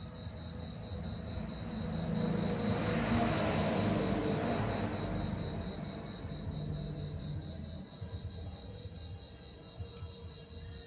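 Insects chirping: a high, rapid, evenly spaced chirp with a continuous higher trill above it. A rushing noise swells and fades about a third of the way in.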